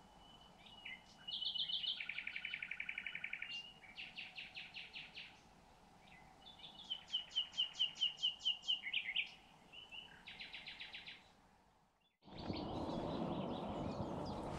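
A songbird singing in separate phrases: a held high whistle, fast trills and runs of rapidly repeated notes, with short pauses between phrases. Near the end the song breaks off and a steady rushing noise takes over.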